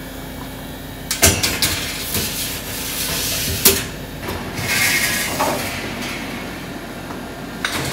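Commercial bakery kitchen: a steady fan and hum from the oven, with metal baking trays knocking and clattering several times as trays of bread rolls are slid onto racks and into the oven.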